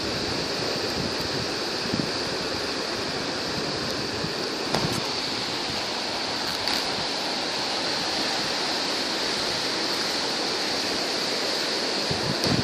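Steady rush of surf on a sandy beach, with a steady high hiss above it and two faint clicks partway through.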